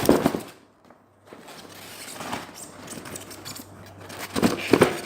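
Cardboard box and polystyrene packing being handled and pulled apart: scraping and rustling, with sharp knocks at the start and a cluster of louder knocks near the end.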